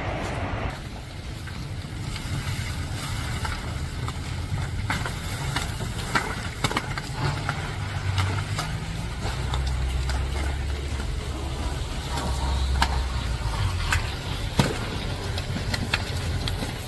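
Large fire burning: a low, steady rumble with many scattered crackles and pops. One sharp pop late on is the loudest.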